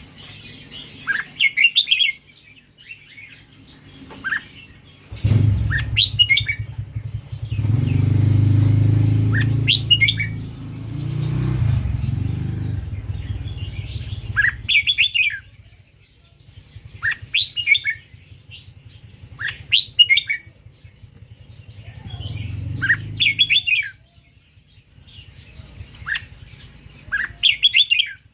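Red-whiskered bulbul singing short, bright whistled phrases, one every two to three seconds. A low rumble swells up under the song in the middle.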